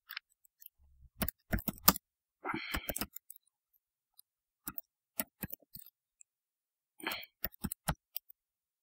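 Computer keyboard keys clicking in short irregular runs with pauses between, as a command is typed.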